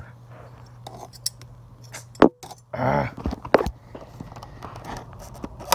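Scissors snipping at a cardboard-and-plastic toy box: scattered clicks and rustles over a steady low hum. There is one sharp click a little after two seconds in, and a brief grunt-like voice sound about three seconds in.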